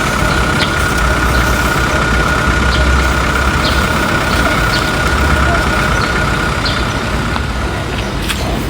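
Steady engine-like running noise with a continuous high whine, which fades out shortly before the end.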